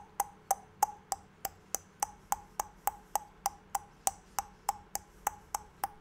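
A person making short, sharp mouth clicks over and over, evenly spaced at about three a second.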